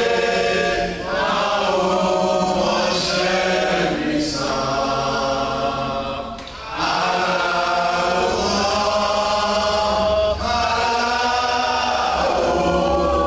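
A group of voices singing together without instruments, holding long notes in phrases of a few seconds each.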